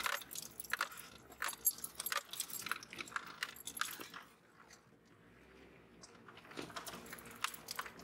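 Irregular rattling and clinking inside a jeep's cabin as it bounces along a rough dirt track, easing off for a moment about halfway through.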